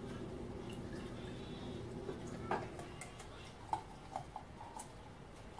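Carbonated home-brewed Irish red ale poured from a bottle into a pint glass: a faint steady trickle for the first two and a half seconds or so, then a few small ticks.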